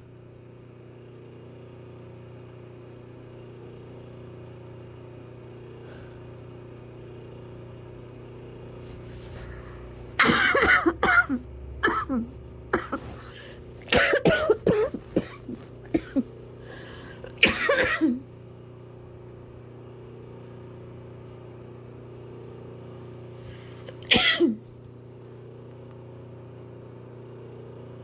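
A person coughing hard: a long run of harsh coughs starting about a third of the way in, then one last cough near the end. A loud fan hums steadily underneath the whole time.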